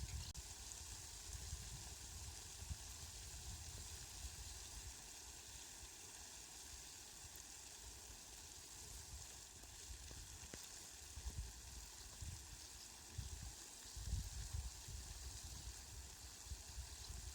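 Rain falling as a steady, faint hiss, with irregular low rumbles underneath that grow stronger around three quarters of the way through.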